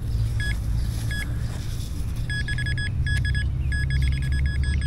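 Handheld metal-detecting pinpointer beeping in short high-pitched pulses as it is probed into a dug plug hole in lawn soil: a couple of single beeps at first, then longer runs of rapid beeps in the second half as it closes in on a buried coin. A steady low rumble runs underneath.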